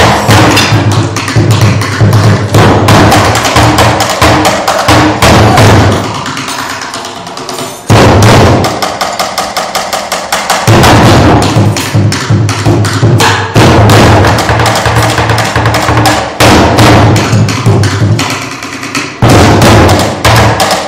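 Two large barrel drums made from recycled bins, slung like dhols and struck with sticks, playing a driving bhangra rhythm of rapid strokes over a deep boom. The playing thins out about six seconds in and comes back in sharply near eight seconds.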